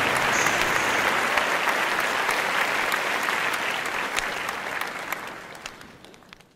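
Applause: dense crackling clapping that fades out over the last second and a half.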